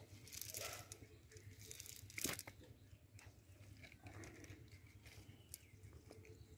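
Faint rustling and crackling of a cast net's mesh as small fish are picked out of it by hand, with one sharper crackle about two seconds in.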